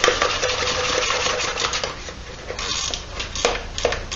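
Wrench and steel bolt hardware clicking and clinking as a bolt is run in and tightened on a small engine's mounting: a dense run of rapid clicks for about two seconds, then a few sharp single clicks.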